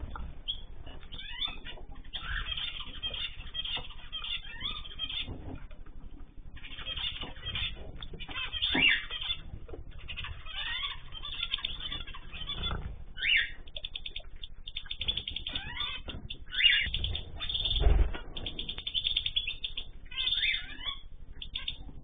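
Many small aviary finches chirping and twittering together in quick rising and falling calls, with a few louder low thumps, the loudest about three quarters of the way through.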